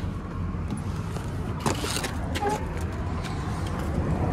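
Parked truck's engine idling with a steady low rumble, with a few light clicks and knocks over it.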